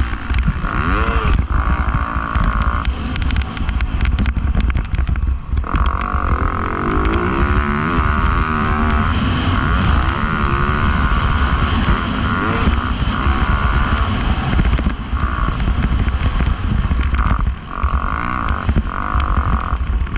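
Dirt bike engine revving up and down repeatedly as the bike is ridden, over heavy wind buffeting on the microphone.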